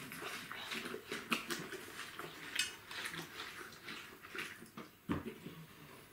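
Someone biting and chewing a juicy slice of watermelon: a run of irregular wet, crisp crunches, then a single knock against the plate about five seconds in.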